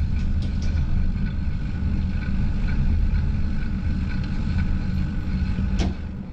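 Wind rumbling over the microphone of a bike-mounted GoPro as the bicycle coasts downhill, a steady low buffeting. A sharp click comes near the end, and the rumble eases after it.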